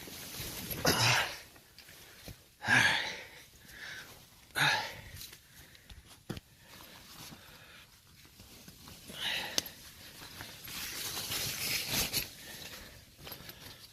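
A man breathing out hard with effortful grunts, three strong ones in the first five seconds, while he squeezes himself into a cramped shelter, followed by quieter rustling and shuffling.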